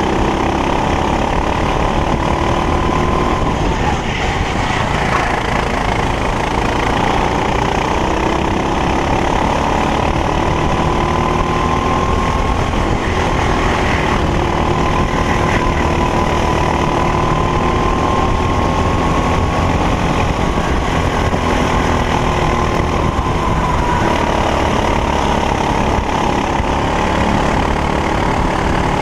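Racing kart engine running hard under load, its pitch slowly rising and falling as the kart accelerates and brakes through the corners.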